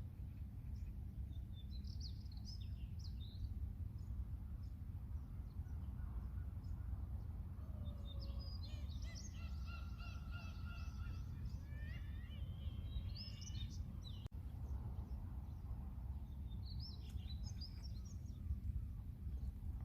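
Seagulls and other birds calling in scattered bouts: short high chirps, then near the middle a longer call with several rising cries, then more chirps near the end. Under them runs a steady low rumble.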